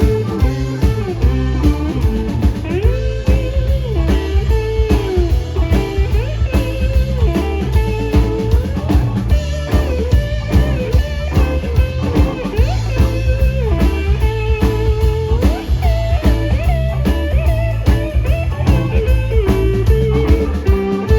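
Live blues-rock band playing an instrumental passage: a lead guitar solo with bent, sliding notes over bass and a drum kit.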